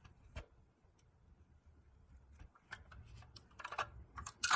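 Small clicks and taps of a toy's rubber-tyred wheel being pushed onto its nickel-plated axle and handled: a single click under half a second in, then a quick run of clicks that is loudest near the end.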